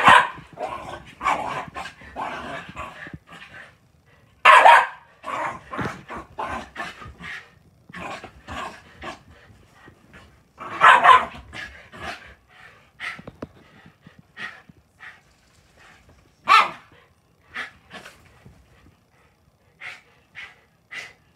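Two Shiba Inus barking and yipping in short bursts as they play rough on a bed. Four loud barks stand out: at the start, about four and a half seconds in, around eleven seconds and around sixteen and a half seconds. Softer barks and yips come in between.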